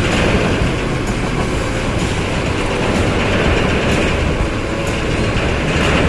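Intercity bus running close by: a steady heavy rumble with faint clacks about once a second.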